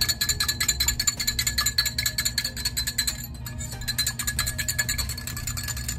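Wire whisk beating an egg in a small glass dish: a fast, even clicking and rattling of the wires against the glass, with a short break a little past halfway.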